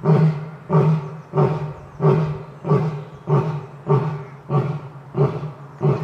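Lion grunting in a steady series of short, deep calls, about ten of them, roughly one every two-thirds of a second: the run of grunts that makes up the end of a lion's roaring bout.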